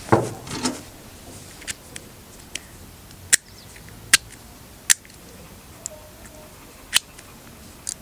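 Squire CP40 plastic-bodied combination padlock being handled, its number dials turned, giving single sharp clicks spaced about a second apart.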